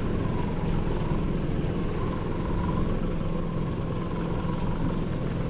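A 200 hp outboard motor idling steadily, a low, even engine drone.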